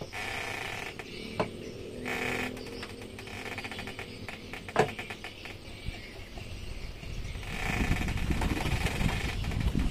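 Hard metal knocks and clinks as an outboard motor's lower unit is handled and fitted during assembly, two of them sharper than the rest. A low rumble builds near the end.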